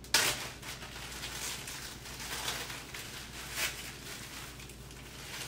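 Plastic zip-top bag crinkling and rustling as it is handled, starting abruptly with a sharp crackle and going on unevenly with a few louder crinkles.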